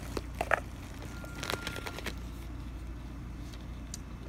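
Clear plastic packaging crinkling and clicking as makeup items are handled, with a few short rustles in the first two seconds, the sharpest about half a second in, then only faint ticks. A steady low hum sits underneath.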